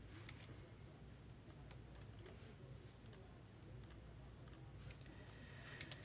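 Faint, scattered clicks from a computer keyboard being used, irregular and spaced out, over a low steady hum.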